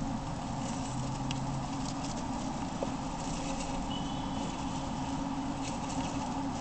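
Roborovski dwarf hamsters scurrying through wood-shaving bedding and scrabbling up a plastic hideout: faint light rustles and scratches over a steady background hum.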